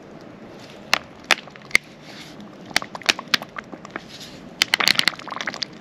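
Thin plastic bottle crackling as it is squeezed by hand around a waterlogged root ball, to loosen the soaked soil so the fig cutting slides out without tearing its roots. Scattered sharp crackles come a few at a time, then bunch together near the end.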